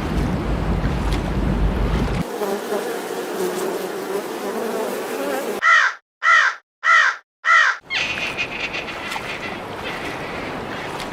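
A crow cawing four times in quick succession, about two thirds of a second apart, a little past the middle. Before the caws there is a noisy rushing background, and after them a hissing background with a steady high buzz.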